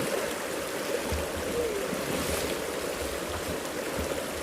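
Running stream water: a steady rushing wash.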